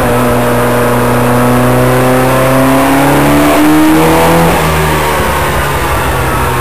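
Renault Gordini DOHC engine running under load on a power dyno, revving up with pitch rising for about four seconds, then dropping back and holding steady.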